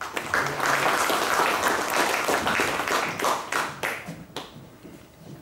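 Audience applauding. The clapping starts at once, holds strongly for about three seconds, then thins out and dies away about four to five seconds in.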